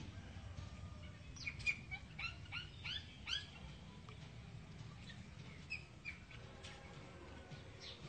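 Green parakeet calling: a quick run of about six short, rising squawks between one and a half and three and a half seconds in, then a few single calls later.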